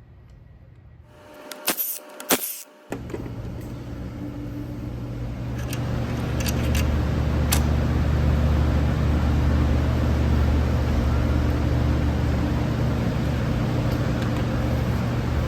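A few light metal clinks, then a steady low machine hum comes in about three seconds in, swelling for a few seconds before holding steady.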